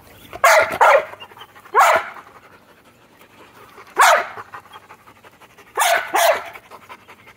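A dog barking six times: a quick pair, two single barks a couple of seconds apart, then another pair.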